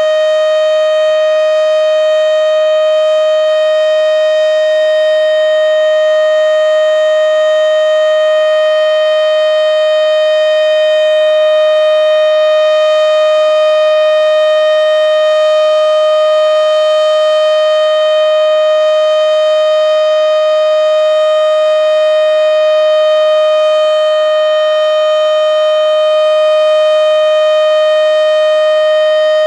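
Federal Signal Model 7B outdoor warning siren running at full speed on its annual test, sounding one loud, steady tone with no rise or fall in pitch, only slight swells in loudness.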